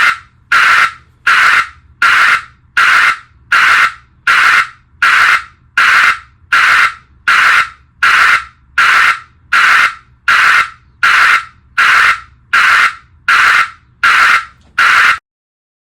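Multi-frequency vehicle backup alarm beeping at a steady pace, a little over one beep a second, about twenty beeps in all. Each beep is a tone blended with a hiss, not a single pure beep. The beeping cuts off suddenly near the end.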